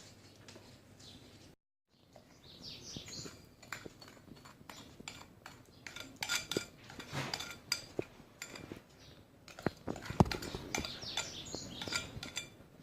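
Utensil clinking and scraping against a container while sugar is worked into lemon juice and grated zest, with sharp clinks and rustling swishes. There is a brief silent gap about two seconds in.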